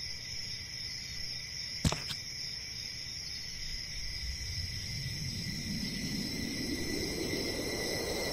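Animation soundtrack: a steady cricket-like chirring, a single sharp click about two seconds in, then a whoosh that swells and rises in pitch from about halfway through as a giant foot comes down.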